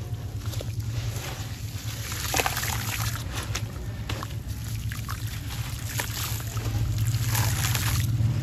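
A soaked sand-cement chunk squeezed and rubbed by hands in a basin of muddy water: gritty crunching and crumbling with water sloshing, over a steady low hum.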